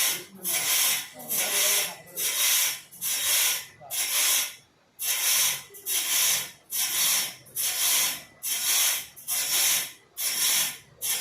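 Wood being worked by hand with steady back-and-forth strokes, each stroke a rasping hiss, about one and a half strokes a second.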